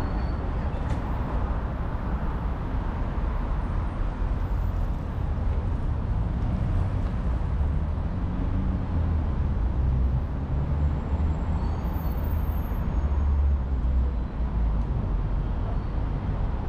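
City street traffic: the steady low rumble of cars and other motor vehicles running past. The engine rumble swells louder about twelve seconds in, then eases off.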